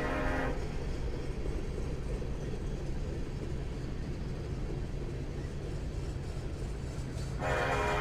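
Diesel locomotive air horn sounding a chord, its blast cutting off about half a second in; the train then rumbles low and steady until a second horn blast starts near the end.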